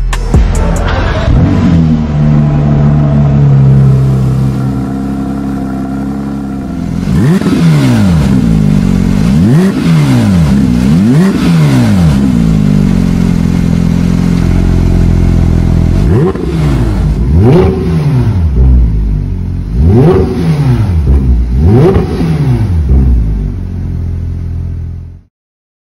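Porsche 992 GT3's 4.0-litre naturally aspirated flat-six through a valved Fi (Frequency Intelligent) aftermarket exhaust, part of it with the exhaust valves closed. The engine runs steadily, then is blipped in two groups of about five quick revs, each rising and falling in pitch, with steady running between them. The sound cuts off suddenly near the end.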